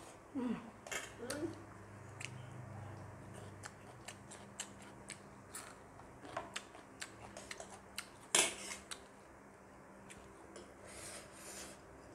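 Eating sounds: forks and spoons clicking and scraping against a plate and a metal food tray in small scattered clicks, with one louder clack about eight seconds in.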